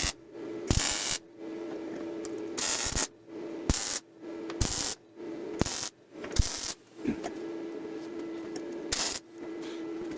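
Arc welder laying short tack welds on 14-gauge steel sheet: about seven crackling bursts, each under a second long, separated by pauses, with a steady hum between them.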